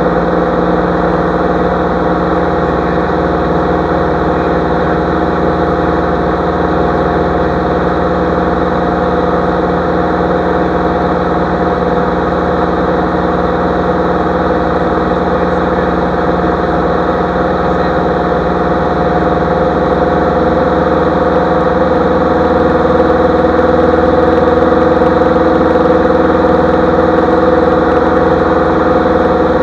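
Light aircraft's piston engine and propeller droning steadily in flight, heard from the cockpit, getting slightly louder about two-thirds of the way through.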